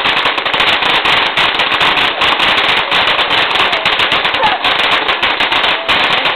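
Ground-level firework crackling in a rapid, unbroken stream of sharp pops, many to the second, like a long string of firecrackers.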